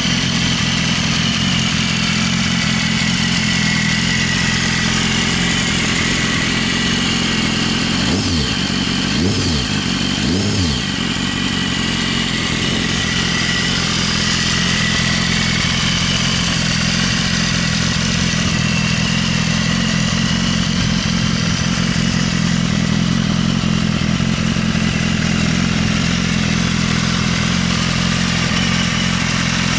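BMW S1000RR's inline-four engine idling through its stock exhaust, with three quick throttle blips about eight to eleven seconds in, each rising and falling in pitch.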